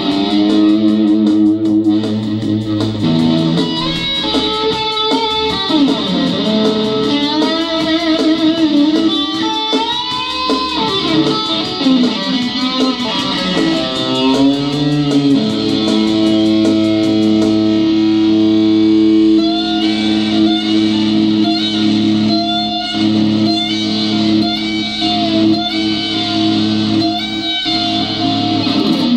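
Electric guitar played with a pick: a lead line with several bent notes rising in pitch, over sustained low notes that hold steady through the second half.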